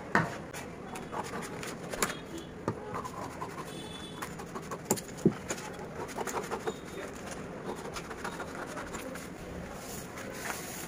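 Scissors cutting through a sheet of paper along a drafted pattern line: a run of irregular snips with paper rustling.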